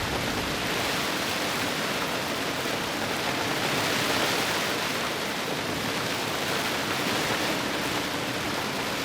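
Steady rushing noise of strong wind and sea around a sailing yacht, an even hiss with no pitch that swells a little about four seconds in.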